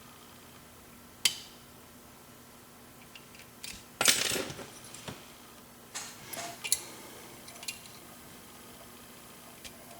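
Metal lock-picking tools working a pin-tumbler lock cylinder: a few sharp clicks and light metallic clinks, with a louder brief metallic rattle about four seconds in.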